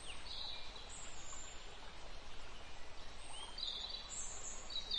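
Faint outdoor ambience: a low steady hiss with a few brief, high bird chirps scattered through it.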